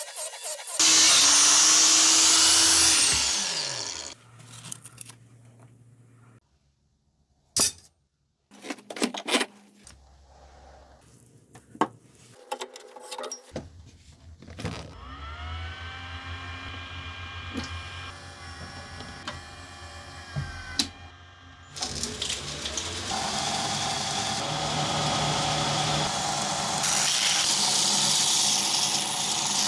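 A steel Giesser butcher knife blade is ground with a motor-driven wheel, and about three seconds in the wheel's motor winds down with a falling whine. Scattered clicks and knocks of handling follow. About halfway through, a belt grinder's motor is switched on and spins up with a rising whine, and for the last third the blade is ground against the belt in a loud, steady grinding.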